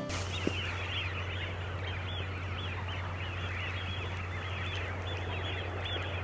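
Dawn chorus: many birds calling at once in a dense, continuous chatter of short chirps, over a steady low hum.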